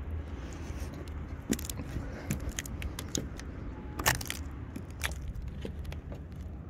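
Scattered clicks, knocks and light clatter from someone clambering over a derelict boat's deck and handling its rusty fittings, the loudest knock about four seconds in, over a steady low rumble.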